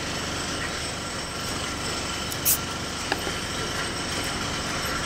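A steady mechanical hum in the background, with a sharp click about two and a half seconds in and a lighter tick just after it.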